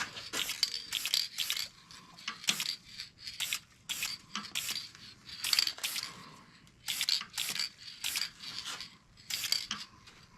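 Woodturning tool cutting wood on a lathe in short, irregular scraping strokes.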